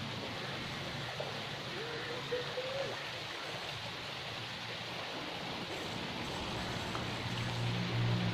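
Steady rushing noise, like running water or rain, with a faint wavering tone about two seconds in.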